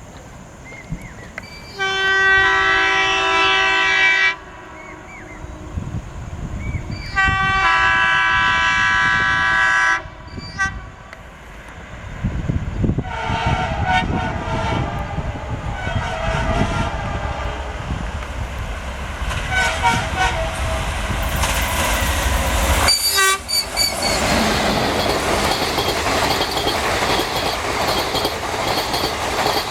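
WDM-3A diesel locomotive's twin-tone air horn sounds two long blasts. As the engine approaches, the horn gives only weak, broken sounds, mostly air pumping out. The locomotive's low rumble rises as it passes, followed by the coaches rushing by with wheel clatter.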